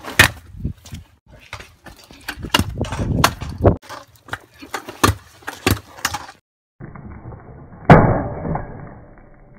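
Stunt scooter clattering on pavement: a run of sharp clacks as the deck and wheels strike the ground during tricks. After a brief gap, one loud landing impact about eight seconds in, fading away.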